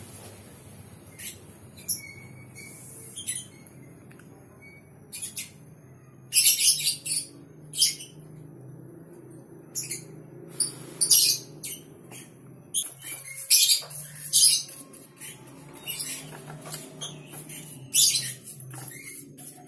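Small hand chisel shaving and scraping a carved wooden model in short, sharp scratchy strokes that come in irregular clusters, over a low steady hum.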